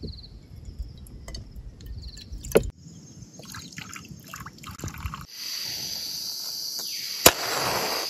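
Camp cooking of instant noodles in short cut-together bits: light clinks and knocks with a sharp knock about two and a half seconds in, then a steady hiss from a little past halfway, broken by one sharp click near the end.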